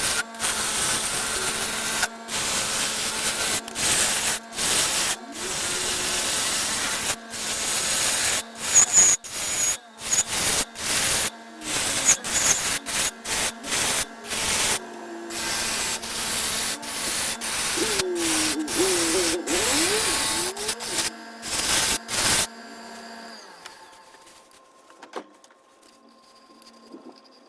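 A tool rubbing and scraping on a walnut bowl in repeated strokes with short pauses, over a steady low hum. It stops suddenly about 22 seconds in, leaving only a faint background.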